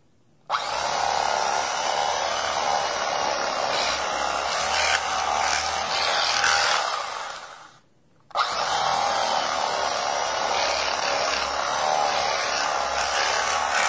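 Cuisinart electric knife running, its motor whining as the reciprocating serrated blades saw through a loaf of crusty bread. It runs for about seven seconds, stops briefly about eight seconds in, then runs again for another slice.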